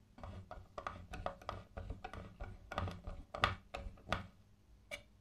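Irregular light clicks and knocks, roughly a dozen and a half over about four seconds, then one more near the end. These are the small handling sounds of the restored bell's wooden case and metal fittings.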